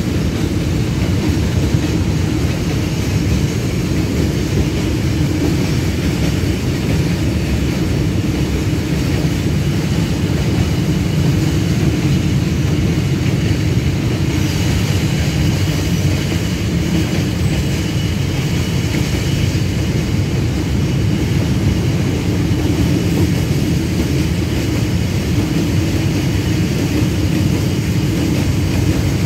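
Long freight train rolling past, its wagons running steadily and loudly over the rails.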